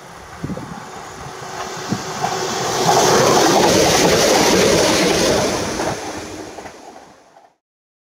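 Newag Impuls II electric multiple unit passing close at speed: a rush of wheel and air noise that swells with a few sharp clicks as it nears, is loudest as the train goes by, then fades and cuts off abruptly near the end.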